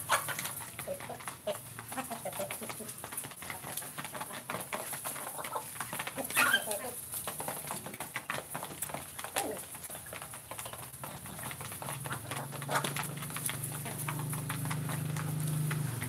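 Free-range village chickens calling and pecking at feed bowls, with many small sharp clicks and one rising call about six seconds in. A low steady hum comes in over the last few seconds.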